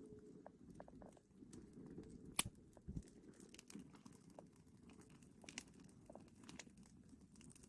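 Near silence with faint scattered clicks and rustles; one sharper click about two and a half seconds in.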